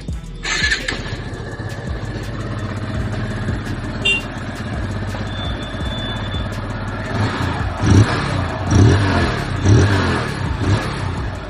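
TVS Apache RTR 160's single-cylinder engine running steadily, then revved in several short throttle blips over the last few seconds.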